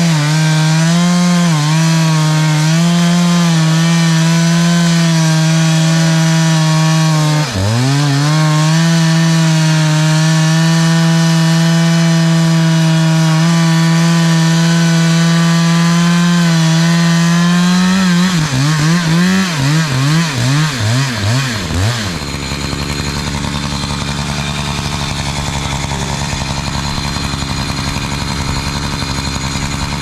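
Chainsaw at full throttle cutting through a log round, the revs dipping briefly once about a quarter of the way in. Later the revs rise and fall several times, and about three-quarters of the way in the saw drops to a steady idle.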